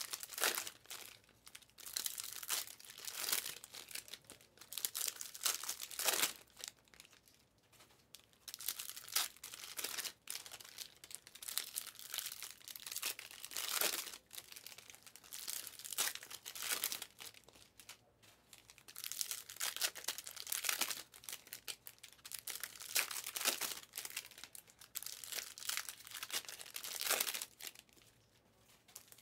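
Plastic wrappers of 2022-23 Panini Mosaic Fast Break basketball card packs crinkling and tearing as the packs are opened one after another, in irregular rustling bursts with short pauses between them.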